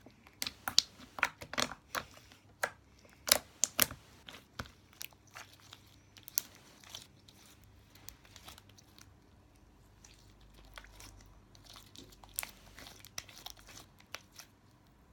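Sticky, putty-like homemade slime being squeezed and stretched in the hands, giving off quick clicks and crackles. The clicks come thick for the first several seconds, grow sparser, then pick up again in a short run near the end.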